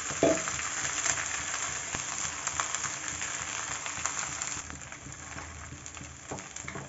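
Boiled noodles and vegetables sizzling in a hot metal kadhai over a high gas flame: a steady crackling hiss that grows quieter about two-thirds of the way in.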